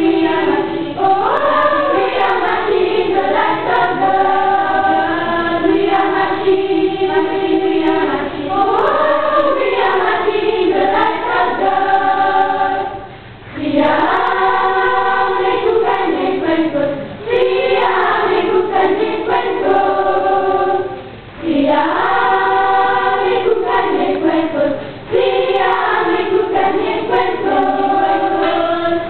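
A choir of children and women singing together in long sung phrases, with brief pauses between some of them.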